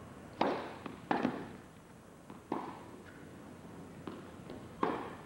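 Tennis rally: rackets striking the ball, heard as sharp pocks a second or more apart, four loud ones with a fainter one just before the last.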